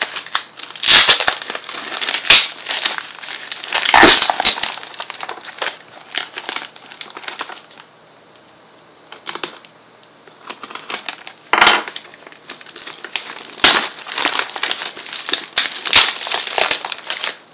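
Plastic courier bag and taped cardboard packaging crinkling and rustling as they are handled and pulled open, in irregular loud bursts with a lull of a few seconds in the middle.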